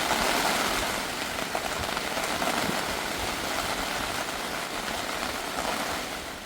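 Steady rain falling: a dense, even hiss of drops, fading near the end.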